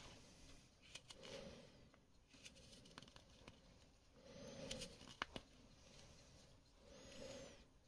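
Faint whittling: a hand-forged carving knife shaving a wooden block in three short scraping cuts, a few seconds apart, with small clicks of the blade near the middle.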